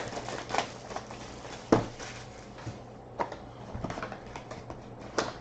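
Light scattered clicks and taps of trading cards being handled and shuffled through on a table, one sharper click about two seconds in, over a faint steady low hum.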